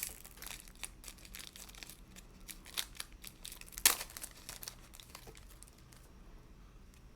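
A foil trading-card pack wrapper crinkling and being torn open, with a run of small crackles and one sharper tear nearly four seconds in; the handling stops about six seconds in.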